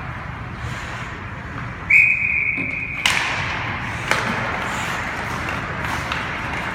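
A referee's whistle blows once and is held for about a second over the steady noise of a hockey rink, followed by a couple of sharp knocks.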